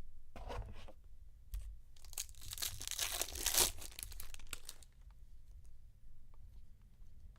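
Foil wrapper of a Topps Chrome trading card pack being torn open and crinkled: a short rustle, then a longer, louder tearing and crinkling that peaks about three and a half seconds in.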